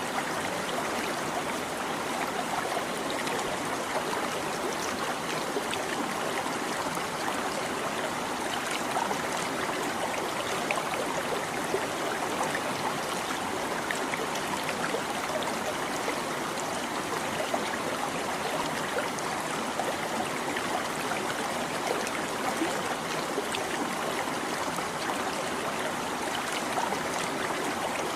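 Stream water babbling over rocks, a steady rushing flow with many small splashes and gurgles.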